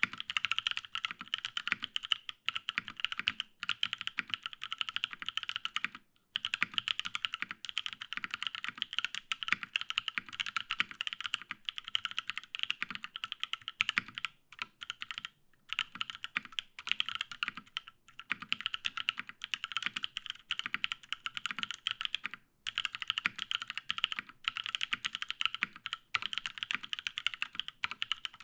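Fast, continuous typing on a Matrix 8XV2.2 custom mechanical keyboard with lubed Paco switches, an aluminium plate and GMK keycaps, set on a bare desk without a deskmat. Dense runs of keystrokes are broken by short pauses a few times.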